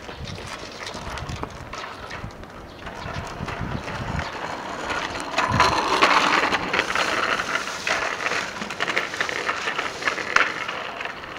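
Child's bicycle with training wheels rolling over asphalt, the small wheels and frame rattling and clicking. It is loudest around the middle, as the bike passes close.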